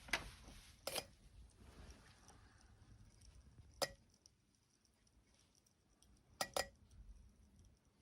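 Fuel injectors on a homemade test rig clicking as power is applied to them by hand: a handful of sharp, irregular clicks, two in quick succession about six and a half seconds in, over a faint background noise that fades out about four seconds in.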